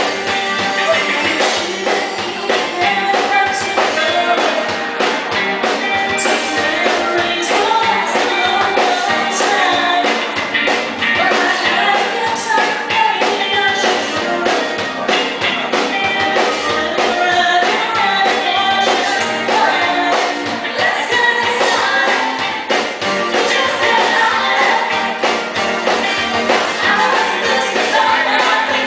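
Live band playing, with a woman singing lead over drums, timbales and electric guitar. The sound is thin, with little bass.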